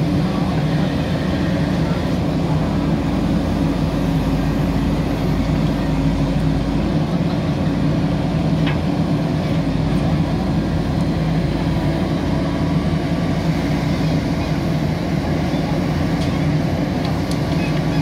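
Diesel engine of a JCB 3DX backhoe loader running steadily under load while the backhoe digs and loads soil, with a single sharp click about nine seconds in.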